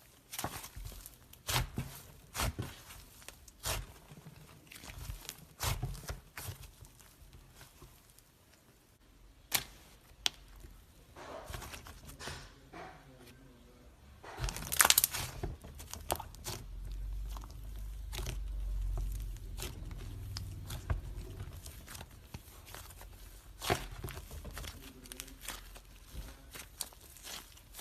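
Slime being squished and stretched by hand, giving a run of sticky clicks and pops, with the loudest cluster about halfway through.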